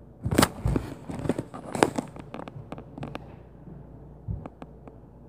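Knocks, bangs and thuds from the upstairs apartment, heard through the ceiling: a burst of sharp knocks in the first three seconds, then one dull thump and a few lighter clicks near the end.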